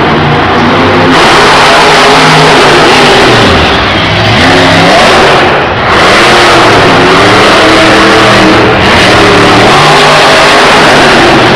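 Monster truck's supercharged V8 engine revving hard, its pitch rising and falling again and again as the truck is driven across the dirt. Very loud.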